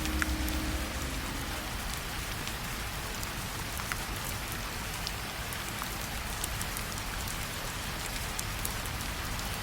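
Steady rain falling, an even hiss with scattered sharp drop ticks. The last notes of the lo-fi music fade out within the first second or so, leaving the rain alone.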